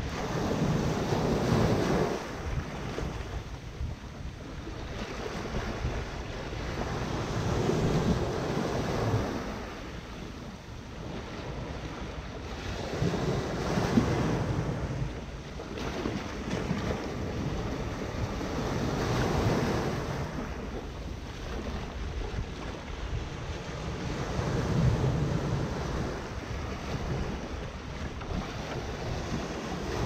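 Small Mediterranean Sea waves washing in over a sandy shallow and against a rock jetty, the surf swelling and falling back in surges about every five to six seconds.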